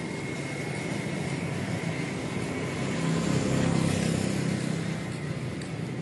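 A motor vehicle passing by, its engine and tyre noise growing louder to a peak a little past the middle and then fading, over a steady outdoor background.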